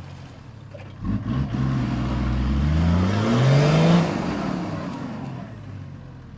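Toyota Land Cruiser HDJ80's 1HD-T turbo-diesel straight-six revved hard under load climbing a muddy rock step: about a second in it picks up and rises in pitch for some three seconds, then eases off and fades.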